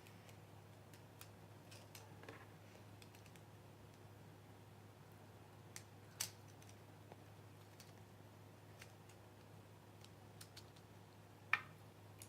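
Near silence over a steady low hum, with a few faint clicks and taps of plastic LEGO pieces being handled, the most distinct about six seconds in and near the end.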